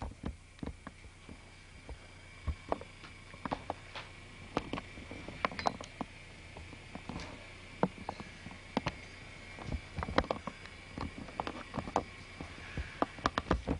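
Handling noise from a camcorder as it is carried and swung around: irregular clicks, taps and knocks of hands on the camera body, picked up by its built-in microphone over a faint steady high tone.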